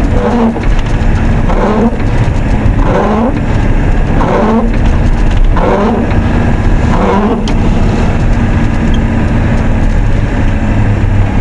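The 7.3-litre IDI diesel of a 1990 Ford F-250 running steadily as the truck drives through snow. A repeating sweeping sound comes about every second and a half over it and stops about two-thirds of the way through.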